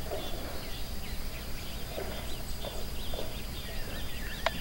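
Cow being hand-milked into a metal pail: soft, irregular squirts of milk, with faint bird chirps and a sharp knock near the end.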